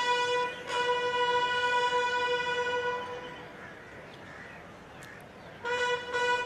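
Bugle sounding a single note in repeated tongued blasts, all on the same pitch. It stops about three seconds in and starts again near the end with quick repeated notes.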